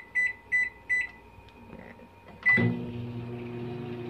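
LG microwave oven's keypad beeping four times in quick succession as the cooking time is entered, then about two and a half seconds in a beep as it is started and the oven begins running with a steady low hum.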